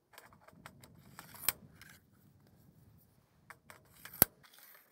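Light metallic clicking and clinking of aluminum snow-bar clamps and brackets being handled and fitted onto the rail, with two sharper clicks, one about a second and a half in and the loudest near the end.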